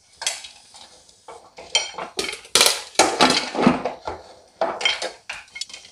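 Popcorn kernels popping inside a closed aluminium pressure cooker: a run of irregular sharp pops against the metal pot, some coming close together.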